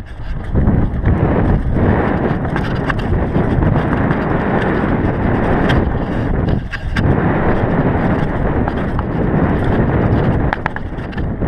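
Wind rushing over the microphone while riding a GT DHi downhill mountain bike on a rocky dirt trail, mixed with tyre noise and the rattle of the bike, with sharp clicks and knocks scattered through. The noise drops briefly twice, just after the start and a little before seven seconds in.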